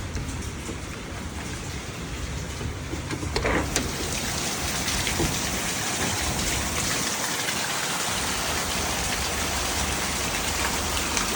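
Heavy thunderstorm rain falling and splattering on surfaces, a steady hiss that grows louder about three and a half seconds in.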